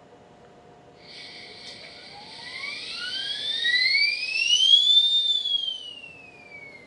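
A pure tone sweeps smoothly up in pitch from low to high, peaks about five seconds in, then slides back down. A hiss sits under the rising part and stops shortly after the peak.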